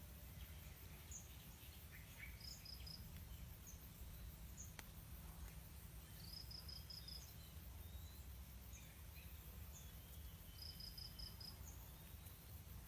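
Faint bird calls: three runs of four or five quick high pips a few seconds apart, with scattered single chirps between, over a steady low rumble of background noise.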